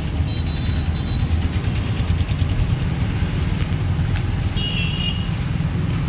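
Roadside traffic: a steady low rumble of passing vehicles and engines. Two short high-pitched tones sound over it, one near the start and another about two-thirds of the way through.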